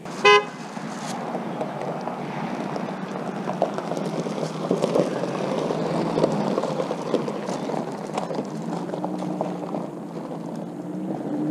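A minivan drives off across a gravel driveway, its engine running and tyres crunching on the loose gravel, loudest as it passes close by midway and easing as it pulls away. A short, loud beep sounds right at the start.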